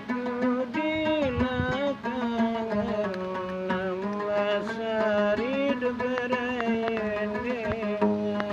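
Gambus, a small plucked lute, played while a man sings a wavering, gliding melody over a steady low drone.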